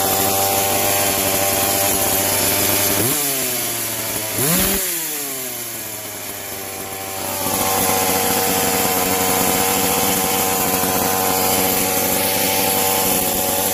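Small two-stroke chainsaw engine, freshly rebuilt, idling, revved up once about three seconds in and falling back, then running steadily again; the owner says the carburettor still needs a little more adjusting.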